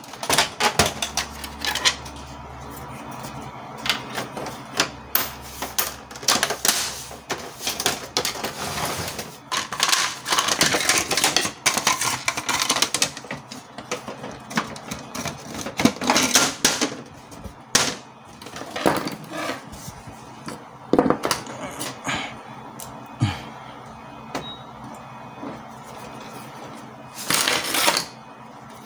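Plastic casing parts of a Canon MP287 inkjet printer being handled and fitted back together: irregular clicks, knocks and rattles of plastic on plastic.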